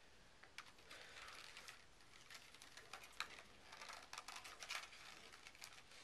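Faint, scattered light clicks and rattles of hands working on an RC truck's plastic chassis and wiring.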